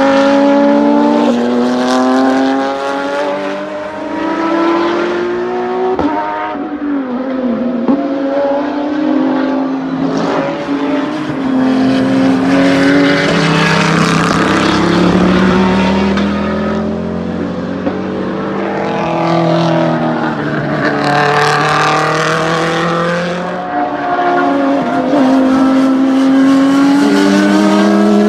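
Race car engines accelerating hard around a road course, climbing in pitch through each gear and dropping back at every upshift. Several cars pass one after another, and one comes closer in the middle with a harsher, louder sound.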